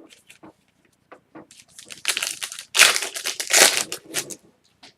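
A trading-card pack's wrapper crinkling and crumpling as the pack is opened, a dense run of sharp crackles that is loudest about three seconds in.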